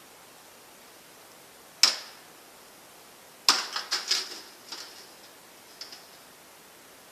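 Light metallic clinks: one sharp clink with a brief ring, then a quick rattling cluster of clinks and a few fainter ones, like small metal parts of a scrapped microwave being handled or dropped.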